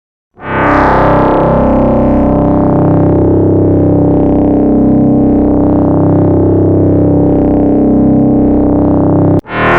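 Korg EX-800 synthesizer playing a sustained bass tone rich in overtones. It swells in about half a second in, holds steady with a slow wavering, and cuts off near the end as the next tone begins.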